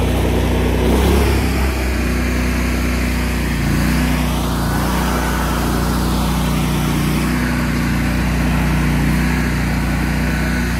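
Bandit ZT1844 stump grinder's engine running steadily, its pitch dipping briefly about a second in and shifting again around four seconds in.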